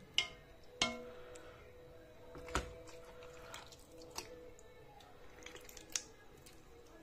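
Sharp clinks against a metal cooking pot, about five knocks spread out, the first two ringing briefly.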